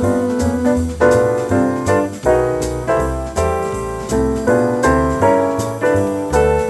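Recorded jazz piano playing chords and melodic phrases, each struck note starting sharply and dying away.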